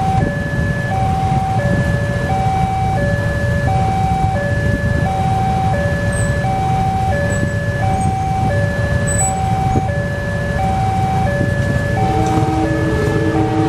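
Railway level-crossing warning bell: an electronic two-tone chime alternating a high and a low note, about one note every 0.7 s, over the low rumble of motorcycle engines idling at the lowered barriers. About twelve seconds in, the approaching train's horn joins with a lower pair of steady tones.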